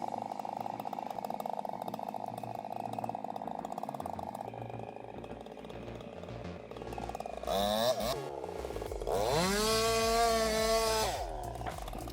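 Chainsaw engine running steadily, then revved up twice: a short rise in pitch about eight seconds in, then a longer high-speed rev held for about two seconds before it drops back near the end.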